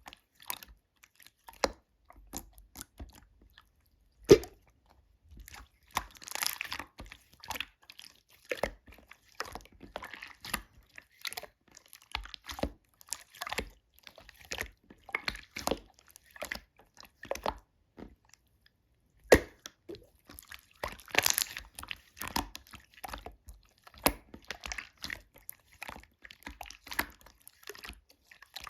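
Slime being pressed, squished and poked by hand, giving irregular wet clicks, pops and crackles, with one sharp snap about four seconds in.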